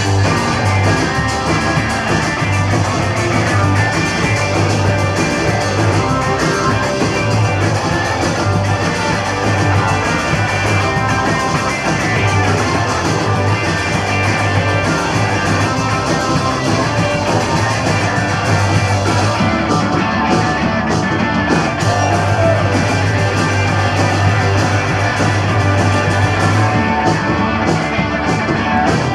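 Punk rock band playing live, with electric guitar, bass and drums. Loud and continuous, with no break.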